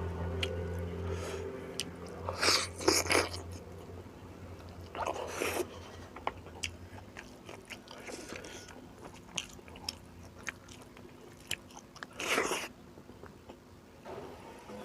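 A person chewing and eating rice with beef curry close to the microphone. There are three louder wet mouth bursts, about two and a half, five and twelve seconds in, with small clicks and smacks between.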